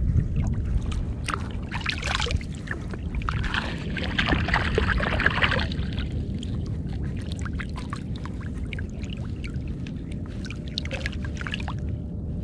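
Water splashing and sloshing close to the microphone at water level, loudest from about two to six seconds in, over a steady low rumble of wind and chop, with scattered small clicks and taps of handling.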